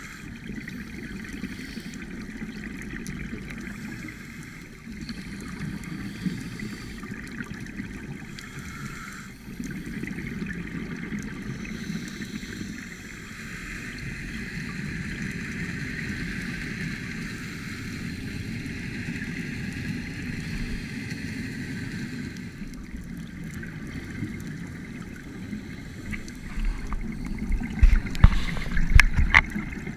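Underwater sound picked up by a GoPro inside its waterproof housing: a steady, muffled water hiss with gurgling. About three seconds from the end comes a run of loud low rumbles and knocks.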